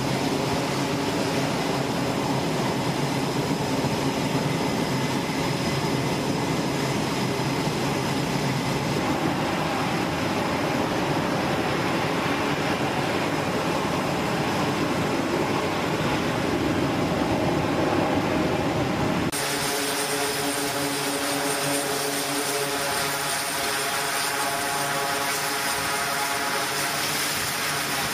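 Aircraft engines running on a carrier flight deck, a steady, loud, unbroken noise. About two-thirds of the way through it changes abruptly to the even, many-toned drone of an E-2 Hawkeye's spinning turboprop propellers.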